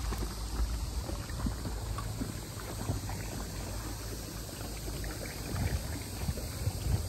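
Water splashing and lapping around a small boat on the sea, with wind rumbling on the microphone.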